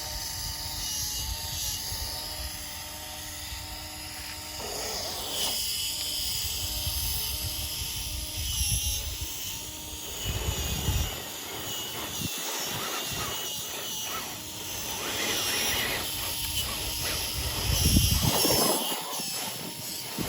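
Small electric motors and geared drivetrains of RC crawler trucks whining as they crawl, with a steady whine for the first half and a few louder, rougher surges later on.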